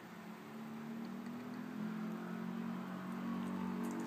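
A steady low machine hum with a few pitched lines, growing slightly louder, with a few faint clicks near the end.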